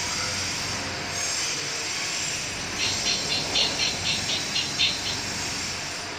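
Steady whir with a high whine from the PRIMO Medis-100 hospital delivery robot's drive as it rolls along a tiled corridor. About three seconds in, a quick, even run of about nine short high-pitched chirps lasts some two seconds.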